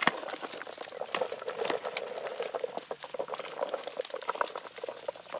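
Ripe blueberries stripped by hand from a cluster on the bush, pattering in a dense run of small clicks and taps into a plastic tub partly full of berries.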